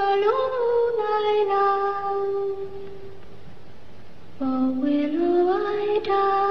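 Solo female voice singing a slow melody in long held notes: one long note fades out about halfway through, then a new phrase climbs step by step to another held note.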